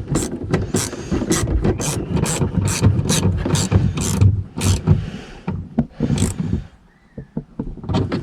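Socket ratchet clicking through repeated short strokes, about three clicks a second, as it snugs the bottom fastener of a tail light; the clicking stops about six and a half seconds in, with a few faint clicks after.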